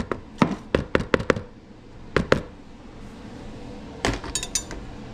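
A kitchen utensil knocking against a bowl while mayonnaise is scooped in: a quick run of about five sharp knocks, two more a second later, then a heavier knock with a brief ringing clink near the end.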